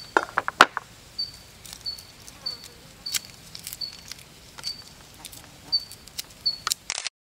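A cleaver knocking sharply on a wooden cutting board a few times in the first second, then fingers breaking apart and peeling garlic cloves with light papery crackles and snaps. A short high chirp repeats about every half second in the background, and everything cuts off suddenly near the end.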